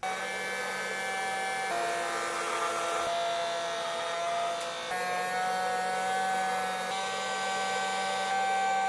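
Steady whine of a small electric motor with rushing air, like a blower or compressor-driven tool running, its pitch stepping to a new level every couple of seconds.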